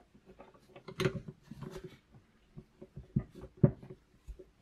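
Scattered light clicks and soft knocks of a wrench working the 24 mm air-spring top cap nut loose on a RockShox Reba fork crown. The cap was not tight at all.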